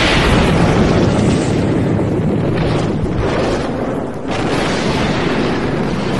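Thunderstorm noise: a loud, continuous rumble of thunder mixed with wind on the microphone, swelling several times.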